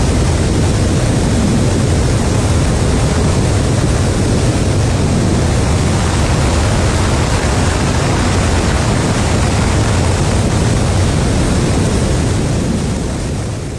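Steady rushing noise of a Tu-160's four NK-32 turbofan engines and airflow in flight, picked up by a camera mounted on the aircraft's back. It fades out near the end.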